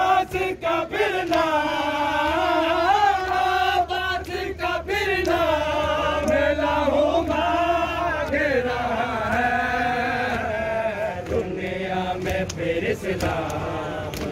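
A noha, a Shia Muharram mourning lament, chanted by male voices in long wavering phrases with held notes. A few sharp hits cut through near the start and again about four seconds in.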